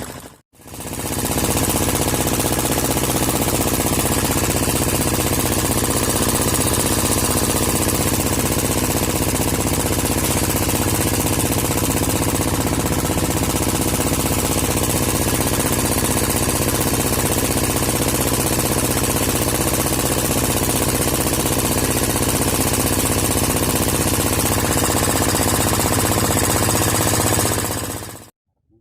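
An engine running steadily at an even speed with a knocking, hammering quality, stopping abruptly just before the end.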